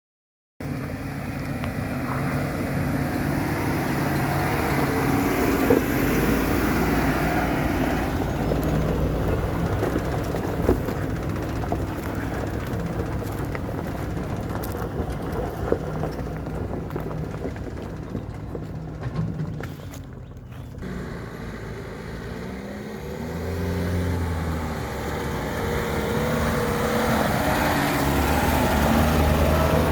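Four-wheel-drive vehicle driving on a dirt track: engine running under load with tyre and road noise, the engine pitch rising and falling a little past the middle.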